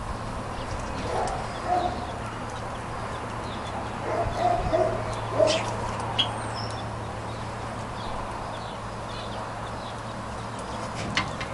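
Short, scattered bird calls and faint chirps from budgerigars in an aviary, with a few sharp clicks, over a steady low hum.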